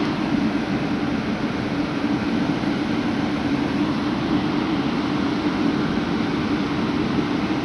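PKP EP07 electric locomotive running with a steady, unchanging drone and rumble.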